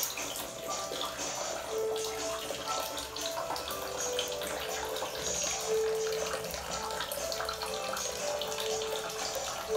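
Water splashing and sloshing in a plastic tub as an otter swims, rolls and dives in it, with background music playing throughout.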